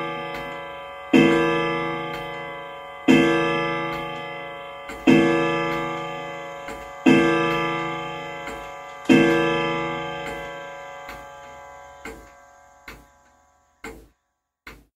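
Ridgeway grandfather clock striking the hour on its chime rods: five strokes about two seconds apart, each ringing out and slowly dying away. The last stroke fades, and the slow tick-tock of the clock's movement starts near the end.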